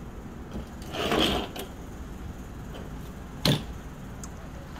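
Handling noise from objects being moved on a cluttered workbench: a brief rustle about a second in, then a single sharp knock about three and a half seconds in.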